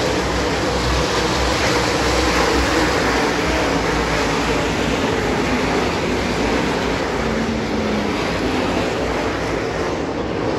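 A field of dirt late model race cars running at racing speed around a dirt oval, their V8 engines blending into a loud, steady drone.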